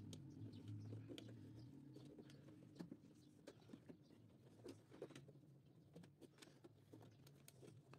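Faint scattered clicks and light taps of wires and plastic parts being handled and fitted at a panel's relay terminals, over a faint low steady hum.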